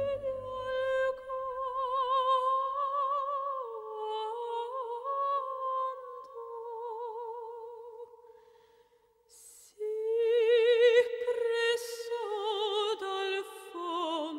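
Operatic soprano singing alone, long held notes with strong vibrato and no accompaniment. The voice breaks off briefly about nine seconds in, then comes back louder on phrases that step downward.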